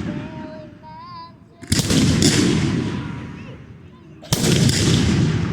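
Fireworks exploding: two loud bangs, about a second and a half apart and again about two and a half seconds later, each followed by a long rumbling decay.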